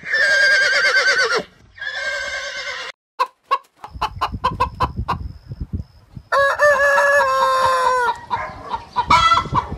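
Farm animal calls: two loud, wavering cries near the start, a quick run of short clicks, then a longer held call with slowly falling pitch and more calls near the end.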